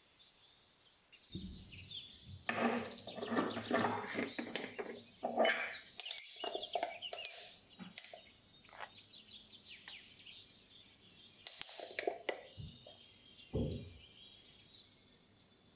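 A metal measuring spoon clinking and scraping against a glass spice jar as ground cinnamon is scooped out, in a run of irregular clinks. Later comes a short second burst of clinks, then two soft knocks as the spoon is tapped over the food processor bowl.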